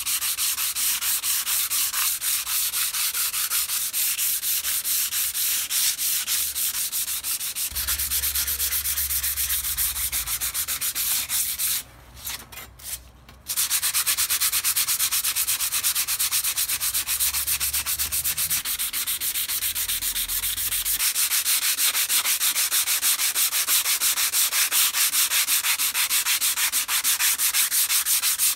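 Sandpaper rubbed by hand in fast back-and-forth strokes over the rusty steel blade of a crosscut hand saw, scouring off the rust. The strokes stop for about a second and a half midway, then carry on.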